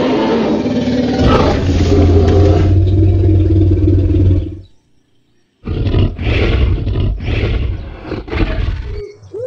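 Dinosaur roar sound effects: one long, deep roar lasting about four and a half seconds, then a short silence and a run of several shorter roars.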